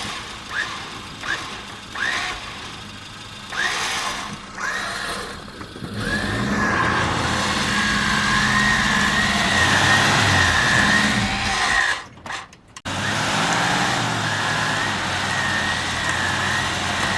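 Suzuki Samurai engine running hard under load with a wavering high whine from the drivetrain, its wheels spinning in deep snow while trying to reverse out. It is preceded by a string of short rising chirps, and the sound cuts out briefly about twelve seconds in.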